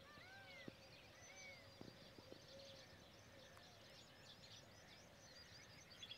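Faint birdsong across open farmland: many small chirps from several birds, with one bird repeating an arching call about once a second in the first couple of seconds and a rapid trill starting near the end.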